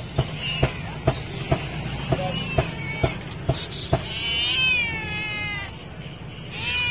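Hungry grey tabby cat meowing loudly for food: a few short meows, then one long, falling meow about four seconds in, and another starting near the end. Sharp clicks come about twice a second through the first four seconds.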